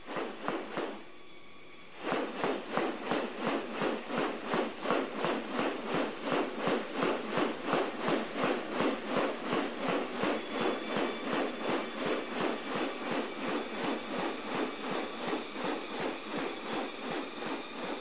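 Male superb bird-of-paradise in courtship display, making a steady run of sharp clicks about three a second that starts about two seconds in. A steady high insect buzz carries on behind.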